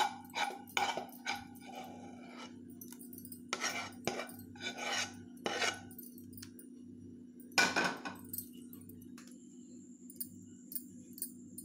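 A spoon scraping and tapping against a stainless steel plate in short, separate strokes as a thick, sticky sweet paste is spread and pressed into it, over a steady low hum.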